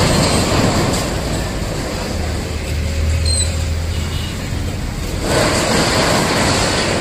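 Steady outdoor noise of motor vehicle engines, with a low engine hum that swells up between about two and four and a half seconds in.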